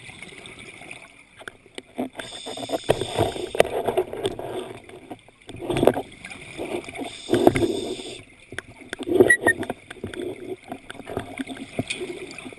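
Underwater sound of scuba regulator exhaust bubbles: loud rushing, bubbling bursts every second or two as divers breathe out, over a steady high whine.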